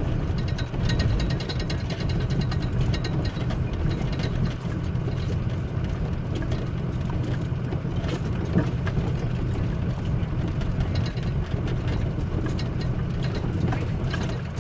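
Converted shuttle bus driving on a bumpy dirt road, heard from inside the cab: a steady low engine and road drone with frequent small rattles and knocks.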